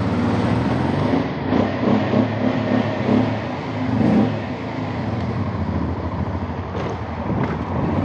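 Honda Transalp's V-twin engine pulling away, its pitch rising a few times in the first half as it revs up through the gears, then running steadier, under wind and road noise.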